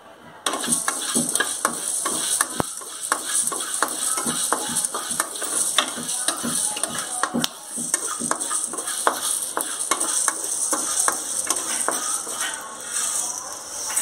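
Wooden spatula quickly stirring coriander seeds dry-roasting in an aluminium kadai: a dense, continuous scraping and rattling of seeds against the metal pan over a steady hiss. It starts about half a second in.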